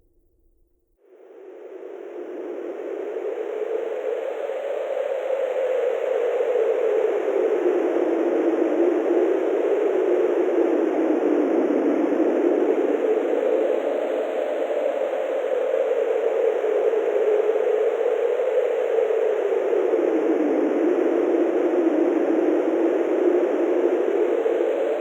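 Wind sound effect: a steady rushing hiss that fades in about a second in and builds over the next few seconds. Its pitch drifts slowly up and down as the wind swells and eases.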